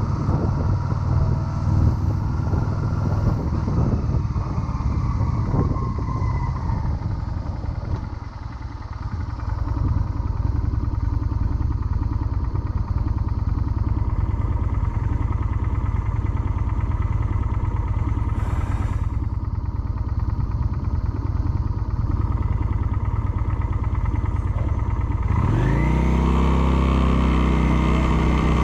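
Motorcycle engine running while riding, heard from the rider's chest-mounted camera. It eases off briefly about a third of the way in, then near the end revs up strongly with rising pitch as the bike accelerates.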